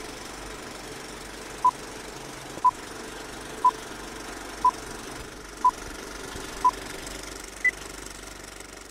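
Film countdown leader sound effect: a steady film-projector clatter with a short beep once a second, six beeps at one pitch followed by a seventh, higher beep.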